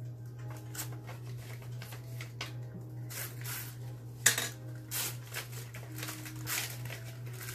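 Tissue paper and a paper gift bag rustling and crinkling as a present is pulled out and unwrapped, with a sharp click about four seconds in. A steady low hum runs underneath.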